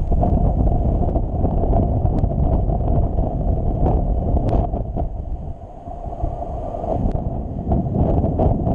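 Airflow buffeting the microphone of a camera on a paraglider in flight: a loud, fluctuating rush of wind noise that eases briefly a little past halfway, with a few faint ticks.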